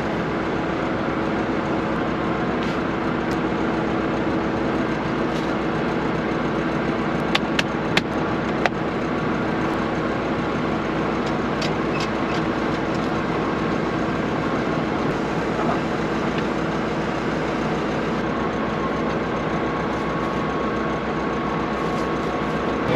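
Combine harvester running steadily with an even engine hum, and a few short clicks about seven to nine seconds in.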